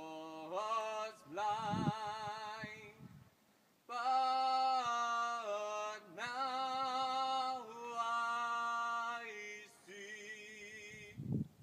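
Background song: a male singer holding long notes with a wavering vibrato, in three phrases with short pauses between them.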